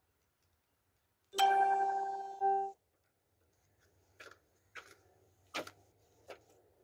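A loud ringing tone starts sharply, fades over about a second, then sounds again briefly and cuts off. After it come four slow footsteps of sandals on concrete steps.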